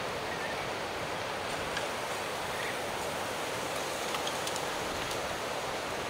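Steady rushing outdoor background noise, even throughout, with a few faint short ticks about two seconds in and again past the four-second mark.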